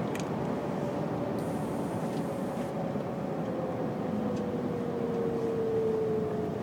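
MAN TGA 480 truck's straight-six diesel engine running under way, heard inside the cab as a steady drone, with a whine that slowly falls in pitch.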